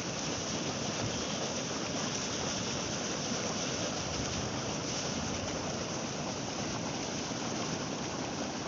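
Boiling hot-spring water churning with a steady rush.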